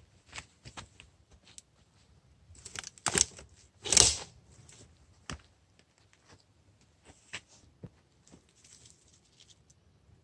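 Thin, very dry pine twigs crackling and snapping in a small starting campfire as more twigs are laid on, in scattered sharp clicks with two louder rough snaps about three and four seconds in.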